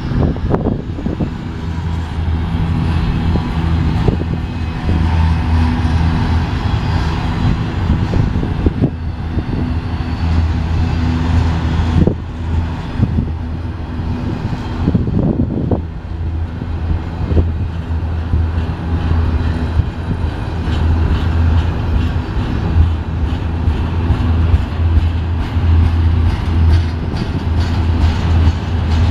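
BNSF double-stack intermodal well cars rolling past close by: a steady low rumble and hum of steel wheels on rail, with occasional sharp knocks. A run of quick clicks comes in over the last several seconds.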